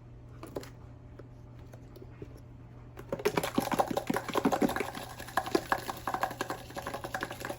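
Dried oregano leaves shaken from a spice jar: a rapid, uneven patter of small clicks that starts suddenly about three seconds in.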